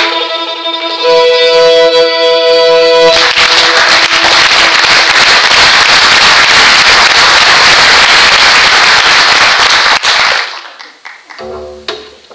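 A bowed string ensemble of violins and double bass holds a loud chord, then about three seconds in a loud, even rushing noise takes over for about seven seconds and cuts off suddenly. Near the end, quiet plucked strings and double bass begin.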